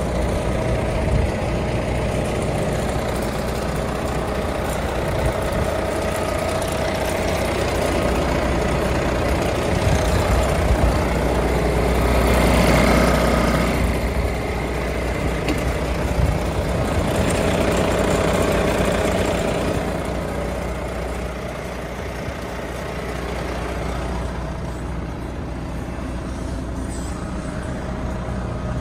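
Volvo FMX 460 truck's 13-litre inline-six diesel engine idling with a steady low rumble, swelling louder twice around the middle and easing off later.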